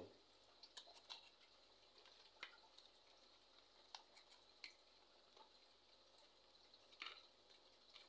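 Near silence, broken by a few faint ticks and short rustles of small cardboard bulb boxes being handled and set down on a tiled floor, the clearest about four and seven seconds in.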